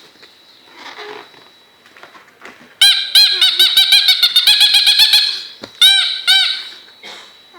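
Squeaky toy balloon being made to squeak: a quick run of high, arching squeaks, several a second, for about two and a half seconds, then two more squeaks.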